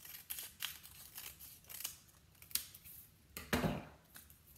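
Scissors snipping through a thick stack of accordion-folded paper, a series of short sharp cuts, with a louder thump about three and a half seconds in.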